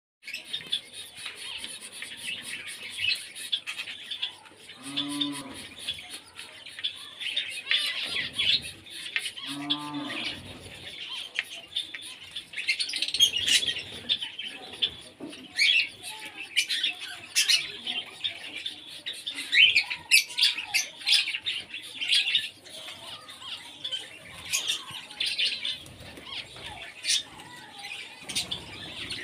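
Many small birds chirping and twittering without a break. Two short, low-pitched calls stand out about five seconds apart, around five and ten seconds in.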